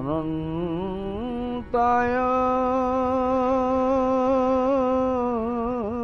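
Solo male voice singing an Odia devotional hymn: a rising, ornamented phrase, then one long held note with slight wavers, sliding down near the end.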